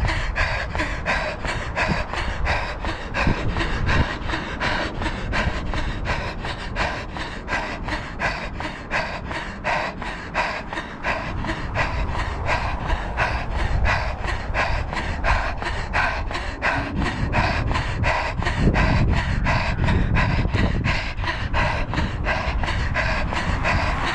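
A runner's hard, panting breath and footfalls on asphalt in a steady rhythm of about three a second, at tempo-run effort.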